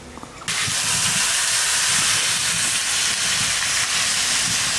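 Water poured into a hot kadai of chicken and green papaya curry, hissing and sizzling loudly. It starts suddenly about half a second in and then holds steady.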